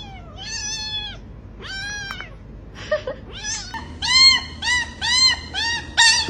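Kitten meowing over and over in short, high-pitched mews. In the second half the mews come quicker and louder, about two a second.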